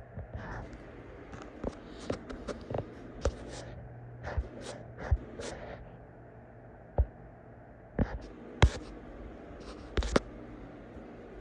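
Irregular sharp clicks and knocks, about a dozen scattered through, from footsteps and handling of the phone as it is carried around, over a steady low hum.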